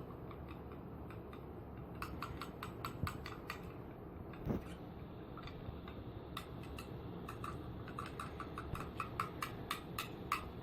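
Spoon clicking against a small dish while stirring Cerelac baby cereal with water into a feeding paste for budgie chicks: a quick run of light taps, several a second, starting about two seconds in.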